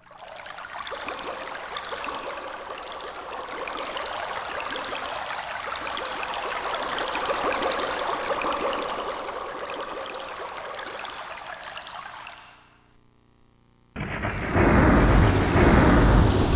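Synthesized sound effects from a TJ Media PRO-3000 karaoke machine's Roland SC-88 sound module. A dense crackling hiss swells and then fades out about twelve seconds in. After a brief pause, a loud thunder effect with a deep rumble begins near the end.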